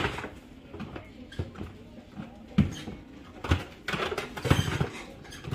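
Toys knocking and rustling as a child rummages through a bin of dolls, stuffed animals and plastic toys: a sharp knock at the start, then irregular clunks and shuffling.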